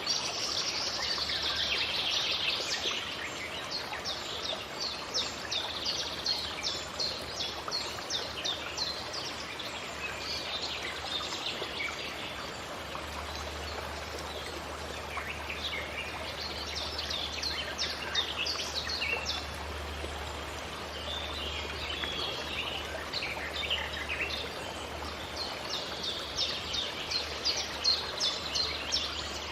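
Forest ambience: a dense chorus of small birds chirping and twittering, heaviest near the start and near the end, over a steady background rush of noise.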